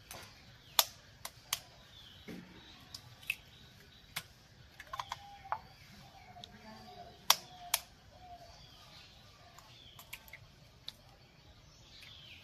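Eggs being cracked by tapping the shells with a small metal spoon: a scattered series of sharp clicks and cracks, the loudest about one second in and again about seven seconds in.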